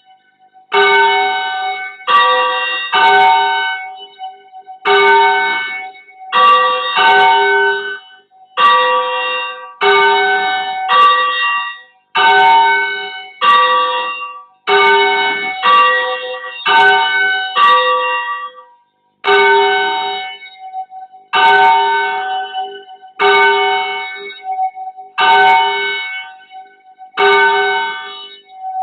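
Church bells rung at a noisy bell-ringing practice: loud bell strokes follow one another in quick clusters about every one to two seconds, with a steady hum from the bells lingering between strokes.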